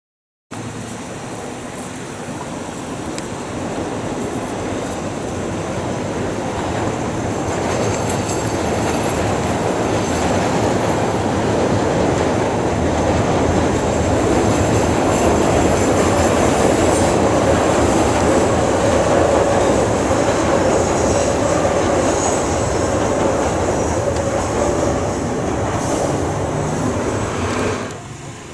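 CTA rapid-transit train passing on the tracks, steel wheels running on the rails with faint high wheel squeal. The rumble swells over the first fifteen seconds or so and drops away sharply near the end.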